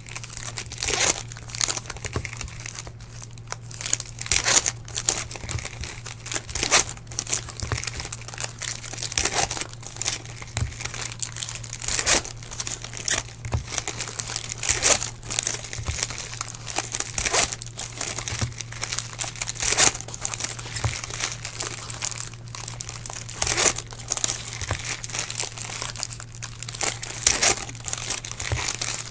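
Wrapping of 2017 Topps Chrome hobby boxes and card packs crinkling and tearing as it is ripped open by hand, in quick, irregular crackles. A steady low hum runs underneath.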